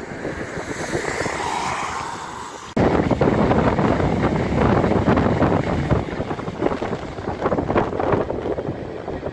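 A passenger train running along the line, with a tone that falls in pitch. About three seconds in, a sudden cut brings a much louder sound: an LNER Azuma high-speed train passing at speed, its rush mixed with wind buffeting the microphone.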